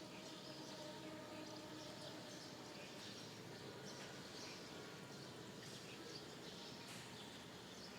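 Faint, scattered bird chirps over a steady background hiss.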